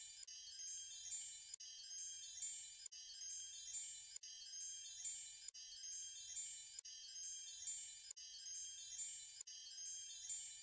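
Faint, high tinkling chimes, like a wind chime, in a pattern that repeats about every 1.3 seconds with a brief dropout at each repeat, as in a looped twinkle sound track.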